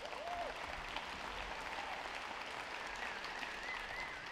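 Applause from a sparse audience echoing in a large sports hall, with a short voice right at the start and a wavering whistle near the end.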